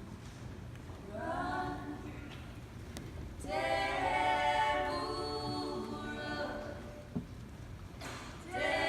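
Women's voices singing close harmony a cappella, in held phrases that swell and fall away, with a short knock about seven seconds in.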